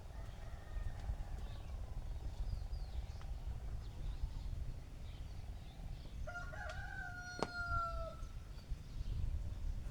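A rooster crowing once, a long call of about two seconds past the middle, with a sharp click partway through it. A fainter call comes near the start, and a steady low rumble runs underneath.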